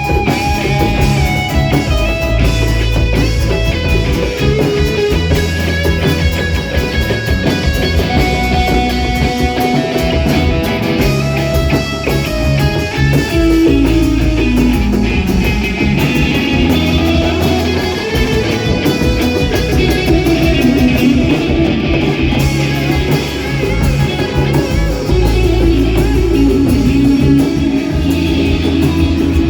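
Rock band playing an instrumental passage, guitar to the fore over bass and drums, with melody lines that bend up and down in pitch.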